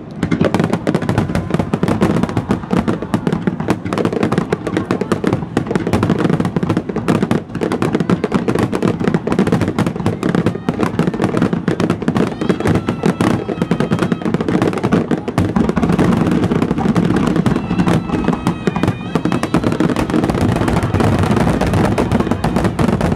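Aerial fireworks in a finale barrage: many shells bursting in rapid, overlapping succession, a continuous din of booms and crackle with no pause.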